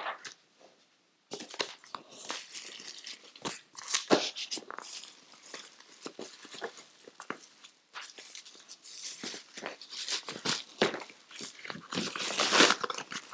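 Plastic bubble-wrap sleeve crinkling and rustling in irregular bursts as an eyeshadow palette is slid into it and handled, with a louder stretch near the end.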